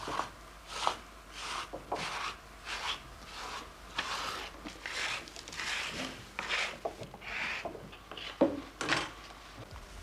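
A stiff brush scrubbing the surface of a freshly set plaster of Paris mould to clean it: a run of short, dry, scratchy strokes, irregular, about one or two a second.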